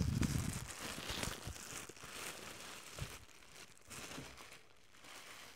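Clear plastic packaging and paper crinkling and rustling as they are handled and pulled apart, loudest in the first second or so and then softer.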